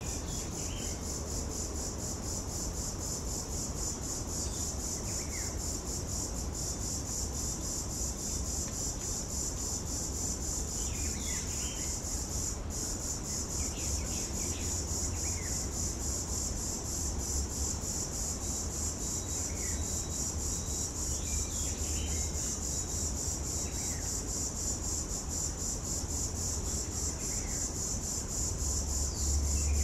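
Cicada singing: a steady, high, rapidly pulsing buzz that carries on without a break. Faint bird chirps come in now and then beneath it.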